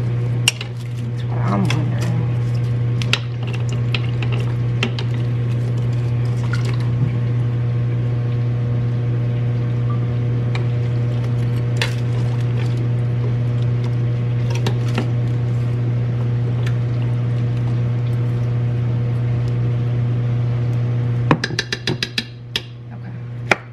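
A steady low hum with scattered clinks and knocks of kitchen utensils and containers over it. The hum stops abruptly about 21 seconds in, followed by a quick run of clicks.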